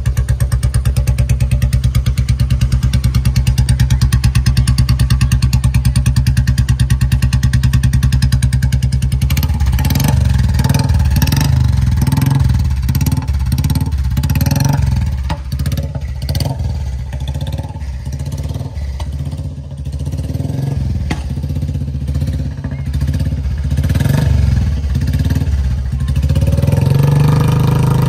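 Royal Enfield Classic 350 Reborn's 349 cc single-cylinder engine, running through a straight-pipe exhaust with the catalytic converter removed: it idles with a steady, even beat for about nine seconds, then is revved in repeated throttle blips, rising and dropping. Very loud.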